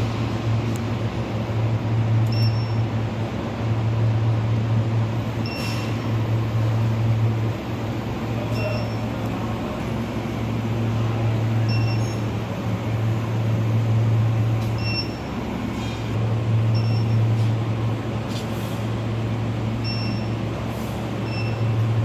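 SPB-H1 induction melting furnace running: a steady low hum under a broad hiss, with short high-pitched chirps every two to three seconds.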